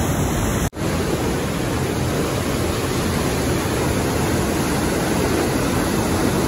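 Waterfall of the Maligne River pouring into a narrow limestone canyon: a loud, steady rush of falling water, broken once by a split-second gap less than a second in.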